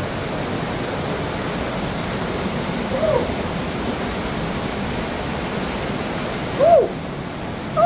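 Steady rush of creek water flowing through a rock cave. A person's short, rising-and-falling voice sounds come once about three seconds in and twice, louder, near the end.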